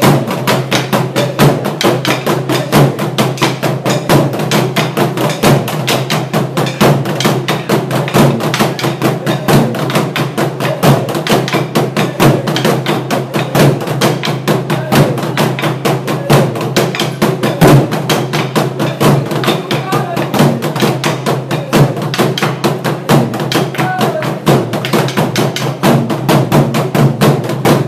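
Burundian drum ensemble beating tall wooden ingoma drums with sticks in a fast, steady, unbroken rhythm of several strokes a second.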